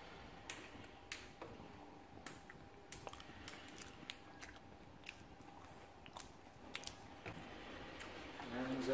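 Faint, irregular clicks and taps. Just before the end a melody of held notes begins.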